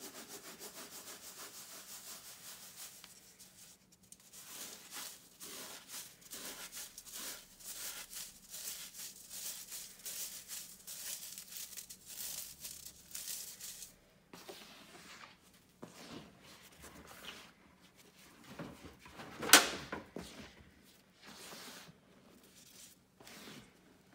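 Powdered gym chalk being rubbed through a metal mesh sieve by hand. It starts with a fast, dense rattle of the shaken sieve, then turns into rhythmic scratchy strokes, then softer rustling. One sharp knock, the loudest sound, comes a little after three-quarters of the way through.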